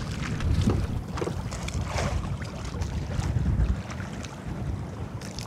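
Wind buffeting the microphone in an uneven low rumble, with water sloshing against a small boat's hull and a few faint knocks.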